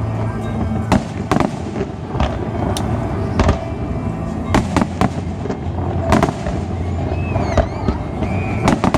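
Aerial fireworks display: shells bursting in a steady string of sharp bangs and crackles, with a few whistling pitch glides in the last couple of seconds.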